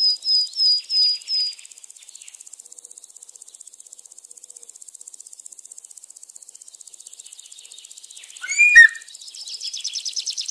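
Small birds chirping: a quick run of high chirps, about five a second, that stops after a second and a half. A faint steady high buzz follows. A single louder, sharper call with a click comes about eight and a half seconds in, then fast falling chirps near the end.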